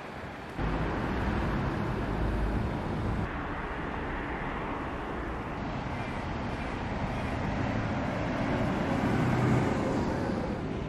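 City road traffic noise: a steady wash of cars and buses passing on a wide multi-lane road, swelling briefly near the end.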